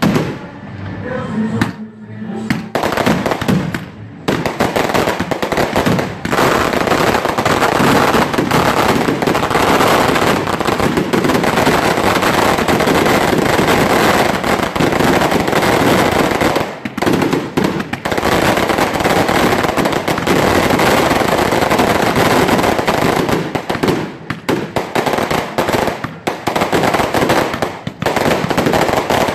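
A fireworks barrage: a few spurts of bangs in the first seconds, then from about four seconds in a dense, continuous rattle of rapid bangs, broken only by a few brief lulls.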